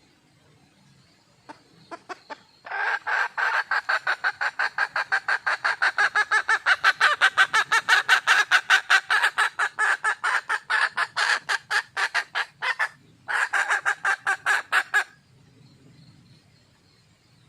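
Red junglefowl hen calling: a few single clucks, then a long run of fast, evenly repeated clucks at about five a second, a brief break, and a final short run. It is the hen's call for a mate.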